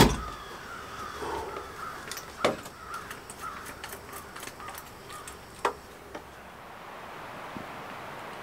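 A crow cawing in a run of short calls over the first five seconds or so, with a few sharp knocks.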